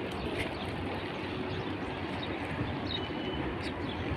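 Steady outdoor background noise, a mix of wind and distant traffic, with a few faint high chirps.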